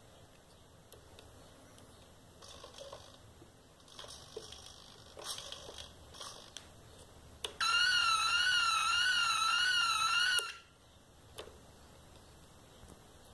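Electronic siren fitted to a modified Revel Lamborghini Murciélago RC model car, sounding for about three seconds past the middle: a high tone warbling up and down about three times a second, starting and cutting off abruptly. Faint clicks and short rustling come before it.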